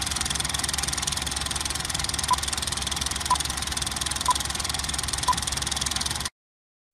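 Film projector running with a fast, steady clatter, with four short countdown-leader beeps about a second apart over it; all of it cuts off suddenly near the end.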